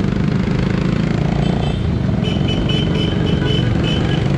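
Wind rushing over the microphone of a camera on a moving bicycle, mixed with motorcycle engines. A high, broken tone comes and goes from about two seconds in.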